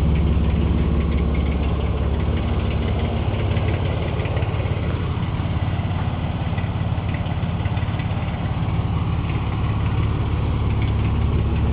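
The 3.9-litre Dodge V6 in a 1953 International pickup idling steadily through a stock Dodge Dakota exhaust, running smooth and very quiet.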